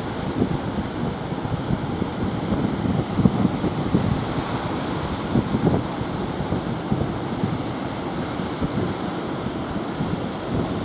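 Surf breaking and washing in, with wind buffeting the microphone in gusts.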